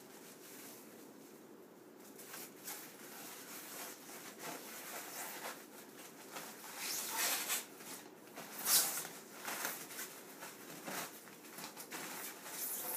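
Plastic bag on a new computer monitor crinkling and rustling as it is handled and pulled off the screen during unpacking. The noise comes in irregular bursts, louder in the second half, with the loudest burst about nine seconds in.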